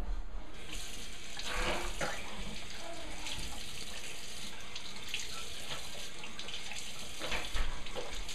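Tap water running steadily into a sink, starting about half a second in.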